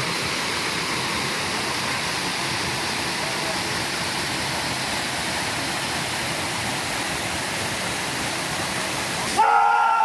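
Trail Canyon Falls pouring into its pool: a steady, even rush of falling water. A little before the end it cuts off abruptly and gives way to a held, pitched sound.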